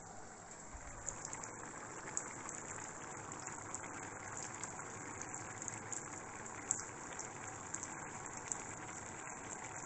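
Tomato broth with wheat boiling in a large stainless steel pot on the stove: a steady bubbling hiss with scattered small pops.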